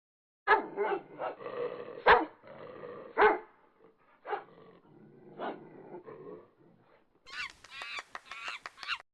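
An animal giving a run of short, sharp barking calls: loud ones in the first few seconds, softer ones after, and a quick burst of higher calls near the end.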